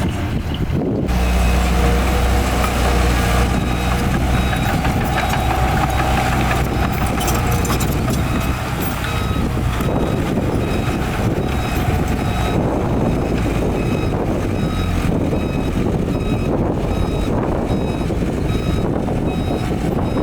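Heavy diesel earthmoving machinery running steadily, with a reversing alarm beeping at an even pace in the second half.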